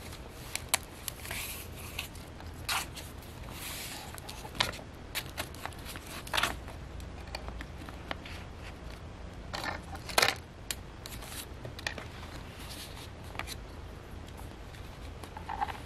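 Thick paper and file-folder pages rustling and scraping as they are handled and shuffled, with irregular sharp clicks and taps from wooden clothespin clips being put on to hold them together.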